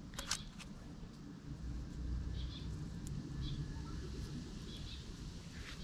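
A hand stroking and picking through a long-haired tabby cat's fur: a low, uneven rustling rumble, with a sharp click near the start. A few faint, short bird chirps sound now and then.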